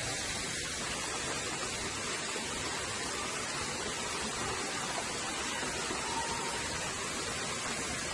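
Steady, even hiss of a thin trickle of water running over the rocks of a nearly dry waterfall.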